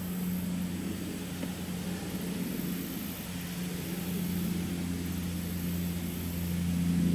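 Steady low drone of an engine running at a constant speed.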